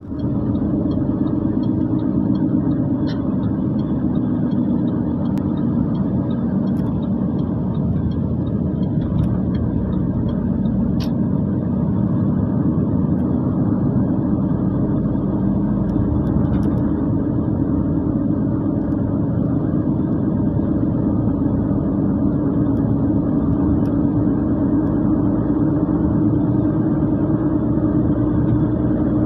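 Steady cabin noise of a car driving, heard from inside: engine and road noise with a continuous low hum.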